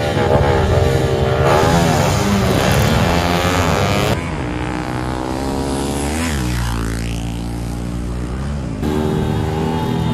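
Small drag-racing motorcycles revving hard at full throttle, one passing close by about six seconds in, its pitch rising and then dropping as it goes past. The sound jumps abruptly a few times where short clips are cut together.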